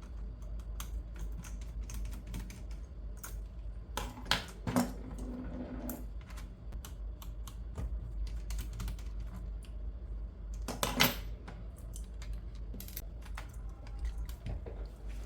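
Irregular small clicks and taps of plastic laptop parts and tools being handled as the laptop is taken apart, with a few louder knocks, over a steady low hum.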